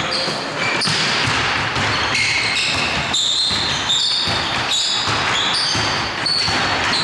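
Basketball play on an indoor court: the ball bouncing and players' shoes squeaking on the floor in many short, high squeals, echoing in the hall.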